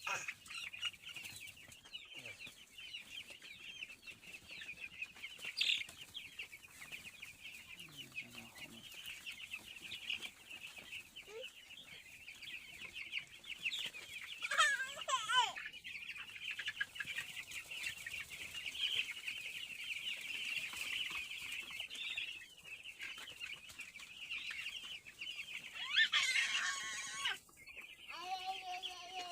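A flock of 16-day-old chicks peeping constantly, many high chirps overlapping into one steady chatter. A louder, lower call rises above it about halfway through, and a brief rustling flurry comes near the end.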